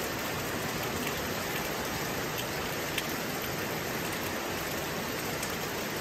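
Heavy typhoon downpour: a steady rain hiss with scattered drop ticks, one sharper tick about three seconds in.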